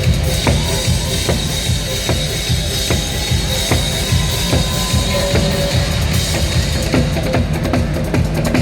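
Instrumental trot backing music with a steady drum-kit beat and a heavy bass line, with no singing.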